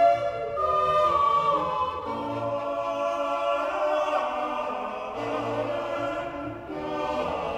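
Closing music: a choir singing slow, held chords that change about once a second over low sustained notes.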